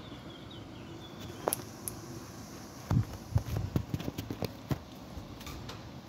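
Clicks and knocks of a wire bird cage and its plastic feeder being handled: two sharp clicks, then a quick clattering run of knocks in the middle. Faint high chirps from a small parrot near the start.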